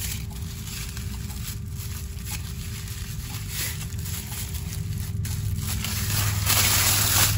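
White paper wrapping rustling and crinkling as it is pulled off a long post, loudest near the end.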